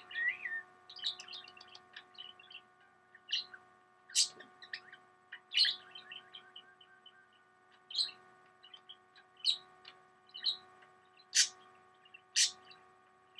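Cockatiel chirping and whistling in short notes, with a few louder, sharper calls, over a steady electrical hum.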